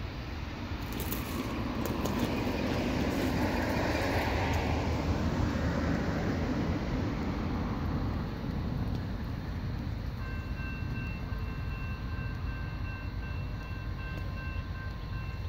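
Freight train rumbling past: locomotive and railcar wheels running on the rails, growing louder over the first few seconds and then holding steady. A thin, steady high ringing tone joins about ten seconds in.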